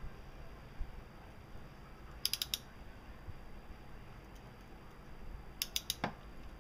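Ratchet clicking of a 3/8-drive torque wrench with a 19 mm socket, tightening a temperature sensor into the cylinder head to its 165 inch-pound spec. The clicks come in two quick bursts of about four, one about two and a half seconds in and one near the end.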